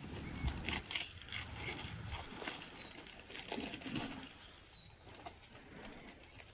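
Aluminium foil crinkling and rustling in quick irregular bursts as a foil cover over a baking tray is pulled open by hand. A bird's short falling whistle sounds twice in the background.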